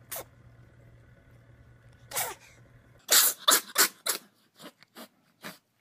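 A cat sneezing: two single sneezes, then a rapid string of about eight sneezes in quick succession, loud at first and growing fainter.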